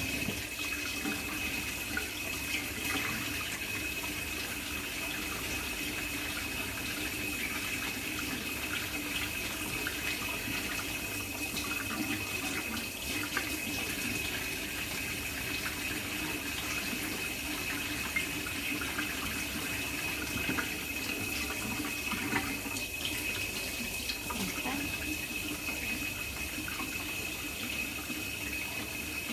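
Kitchen tap running steadily into the sink as raw chicken legs are rinsed under it, with a steady high tone running through the water noise.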